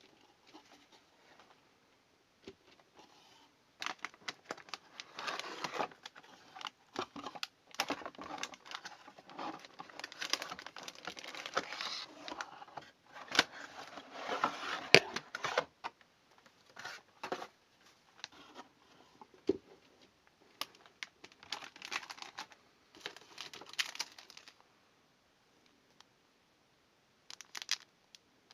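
Motherboard packaging being unpacked by hand: irregular crinkling and rustling of packaging with scattered sharp clicks and taps, pausing briefly near the end.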